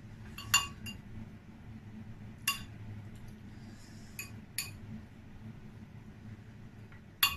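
A hand mixing a coarse chammanthi in a glass bowl knocks against the glass, giving about five short, ringing clinks at irregular intervals.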